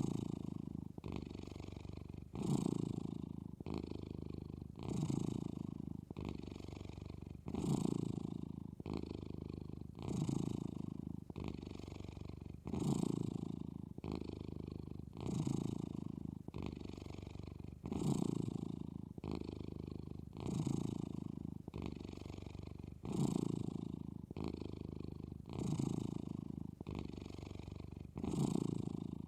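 A sleeping cat snoring: a low rumbling breath that repeats about every two and a half seconds, each cycle a louder swell followed by a quieter stretch.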